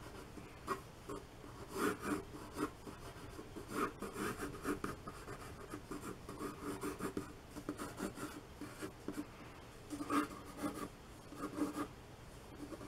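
Pencil scratching across watercolour paper in quick, irregular strokes as a sketch is drawn.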